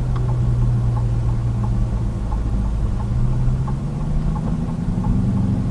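Dodge Charger Daytona's V8 engine running slowly, a steady low hum heard from inside the cabin, with a light tick repeating about every 0.7 seconds.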